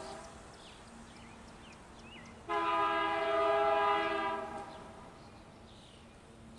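Diesel locomotive air horn on an approaching BNSF freight train, sounding a chord of several notes: the tail of one blast just as it starts, then a single long blast of about two seconds from about two and a half seconds in, fading away at its end.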